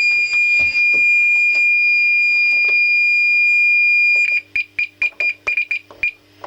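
Fire alarm sounder on a Gent Xenex system sounding a continuous high-pitched alarm tone after a smoke detector has been set off with test spray. About four seconds in, the steady tone stops and gives way to a quick run of short beeps at the same pitch, about four or five a second.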